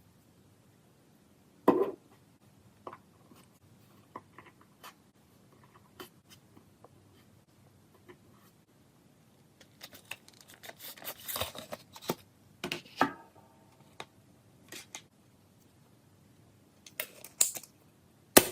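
Irregular clicks, taps and short scrapes of small objects being handled on a work surface, with a loud knock about two seconds in, a busier run of scraping in the middle, and sharp clicks near the end.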